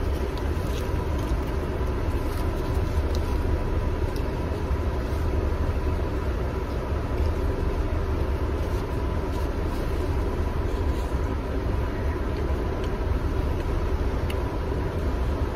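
Steady low rumble of a car's cabin, with the engine and ventilation running, and a few faint clicks over it.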